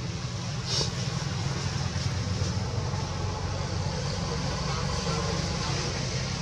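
Steady low rumble and hiss of outdoor background noise, with one short click just under a second in.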